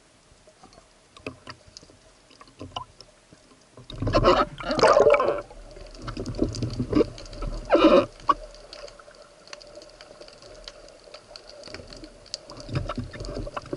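Underwater handling noise heard through a speargun-mounted camera's housing as a diver handles a speared sea bass: scattered clicks and knocks, a loud rush of noise about four seconds in lasting over a second, and a shorter one near eight seconds.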